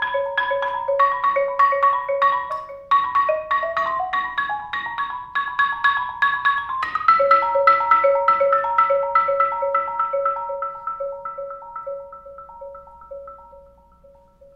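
Solo marimba played with mallets: a fast stream of repeated struck notes over a pulsing repeated low note. It grows louder about seven seconds in, then thins out and fades away near the end.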